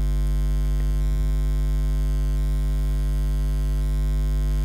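Steady electrical mains hum, a constant low buzz with a stack of overtones, as loud as the narration around it.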